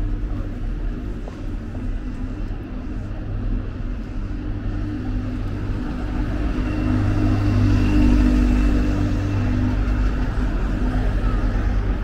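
Street traffic hum, with a red single-decker bus's engine coming closer and passing, loudest about two-thirds of the way in.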